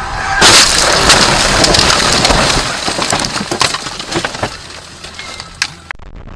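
Car crash heard from inside the car: a loud impact about half a second in, then several seconds of crunching, cracking and scraping as the car smashes through roadside bushes and its windshield cracks.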